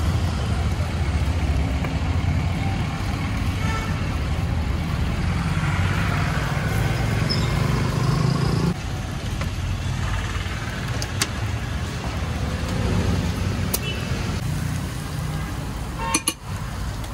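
Busy roadside street ambience: a steady low rumble of passing traffic, with a few sharp metal clinks near the end.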